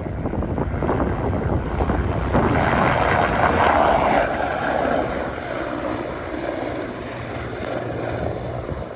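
AgustaWestland A109E helicopter making a low fly-by: its rotor and turbine noise builds to a peak about three to four seconds in, then fades as it flies away.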